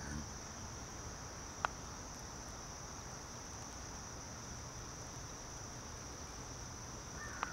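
Insects chirring in a steady high-pitched drone, with one sharp click about one and a half seconds in.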